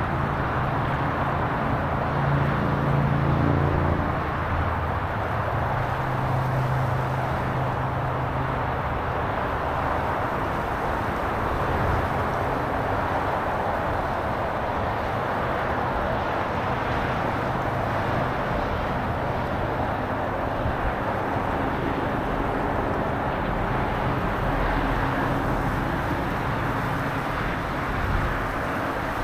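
Steady, noisy wash of road traffic, many cars passing, with a deeper engine hum standing out for the first few seconds.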